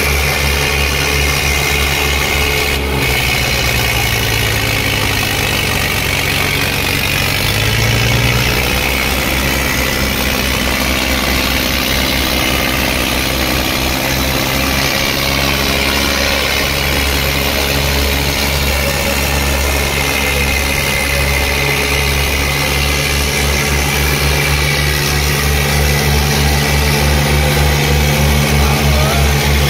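Two diesel tractor engines, an Eicher 557 and a Swaraj 855, running hard under full load as they pull against each other in a tug-of-war. The engine note rises a few seconds in and then settles into a steady, pulsing labour.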